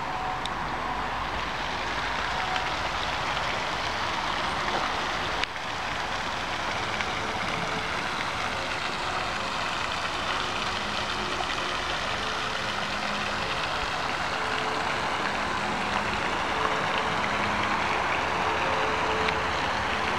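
Steady rushing and splashing of a pond fountain's water jet falling back onto the water, with one short break about five and a half seconds in.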